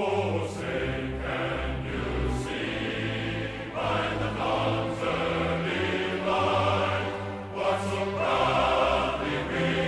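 Background music that starts abruptly from silence, with long held chords over low bass notes.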